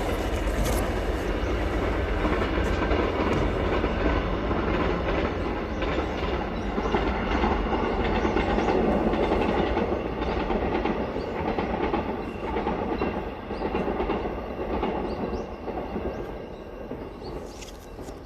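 Steady rolling, rattling vehicle rumble that fades over the last few seconds.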